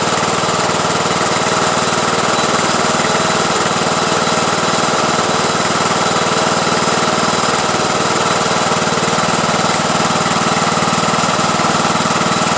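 Craftsman YT3000 riding lawn tractor's engine running steadily at low throttle with an even, fast beat; the engine is still smoking, which the owner takes for a blown head gasket.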